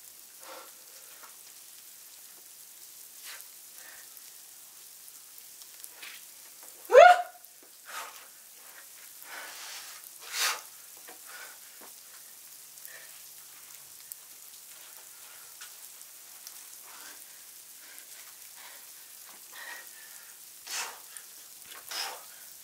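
A boulderer's grunts and sharp breaths as he pulls through hard moves on an overhanging boulder problem, the loudest a short grunt falling in pitch about seven seconds in, over a steady faint hiss.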